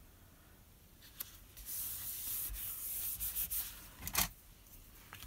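Hands rubbing and pressing a freshly glued paper layer flat onto cardstock: quiet for the first second and a half, then a dry scraping hiss of palm on paper for about two seconds, and a short knock about four seconds in.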